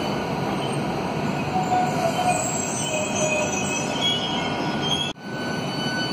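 Southeastern Class 395 Javelin electric train at the platform, its equipment giving a steady rumble with a high whine of several fixed tones, and a few short high squeals about two to three seconds in. The sound drops out briefly about five seconds in.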